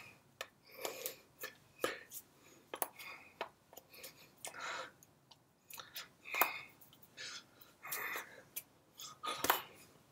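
Wordless mouth and hand sounds of a person signing: breathy puffs and lip smacks mixed with quick clicks and taps of hands and sleeves, irregular, several a second.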